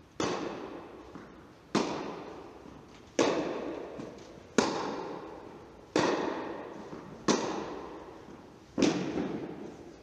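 Tennis ball struck back and forth by rackets in a baseline rally: seven sharp hits about a second and a half apart, each ringing on in the long echo of a large indoor tennis hall.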